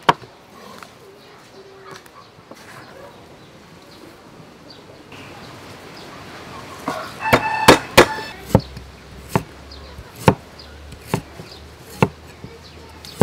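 A cleaver chopping on a thick wooden chopping block, sharp strokes starting a little past halfway and then coming about once a second. A chicken calls briefly in the background as the chopping begins.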